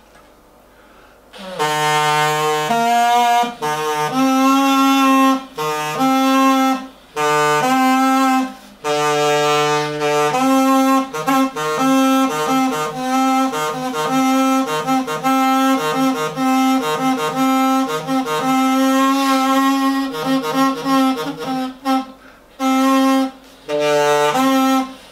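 One pipe of a reproduction Megara aulos, an ancient Greek double-reed pipe, played as a slow practice exercise. It sounds a buzzy reed tone in held notes that step between a few low pitches, with short breaks for breath. The playing starts about a second and a half in.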